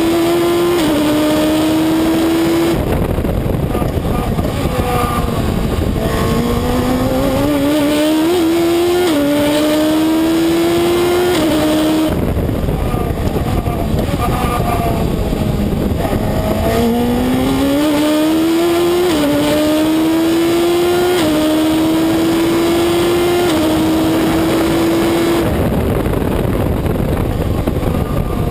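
Reynard Inverter race car's engine at racing speed, heard from the cockpit: it climbs in pitch through the gears with a sudden drop at each quick upshift, then falls away off the throttle under braking for corners, three times, with steady wind and road noise underneath.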